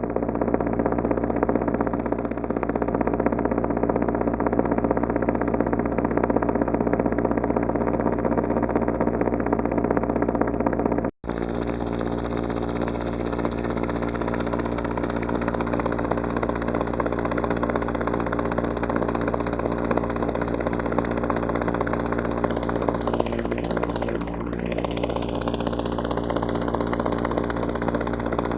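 Synthesized helicopter chopper sound from an NI Absynth patch: a steady, pitched drone of rotor-blade slap and motor, built from a looped imported waveform. It cuts out for an instant about eleven seconds in and comes back brighter. Near the end a hollow filter sweep passes through it.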